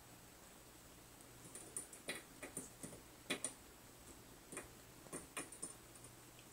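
A cat's claws and teeth clicking and tapping against a thin metal rod as it paws and bites at it: about a dozen light, irregular clicks, a few sharper than the rest.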